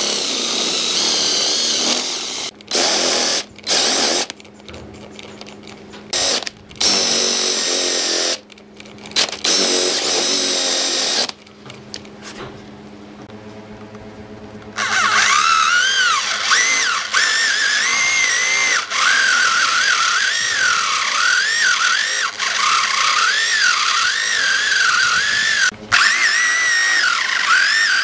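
Cordless drill with a Forstner bit boring into a wooden stump, the motor running in several short bursts that stop and start. From about fifteen seconds in, a corded electric drill with a Forstner bit bores steadily into a slab of hardwood, its whine rising and falling in pitch as the bit bites and frees.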